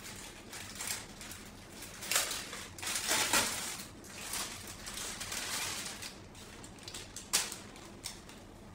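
Glossy plastic mailer bag crinkling and rustling as it is handled and opened and a garment is pulled out, loudest from about two to three and a half seconds in, with one sharp crackle near the end.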